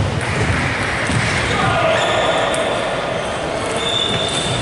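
Busy table-tennis hall: a steady murmur of voices, with a few light clicks of ping-pong balls bouncing.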